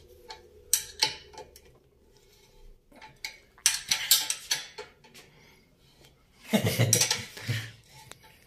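Steel tools clinking and clicking on a screw-type bushing extractor as a wrench turns its nut, with locking pliers holding the extractor body, drawing a worn swingarm bushing out. Scattered sharp metal clicks, with a denser run of clinking about two-thirds of the way through.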